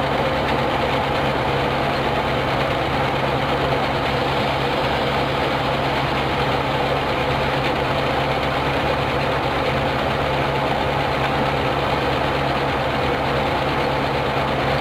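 Steady machinery drone with a constant low hum and no distinct knocks, typical of shipboard machinery running on a warship's deck.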